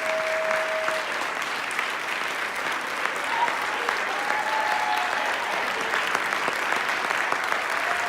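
Audience applauding steadily, with a few held cheers over the clapping.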